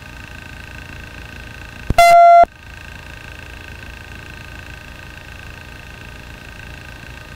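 Steady helicopter cabin hum with a faint whine, carried through the aircraft's recording audio. About two seconds in, a loud electronic beep sounds for about half a second.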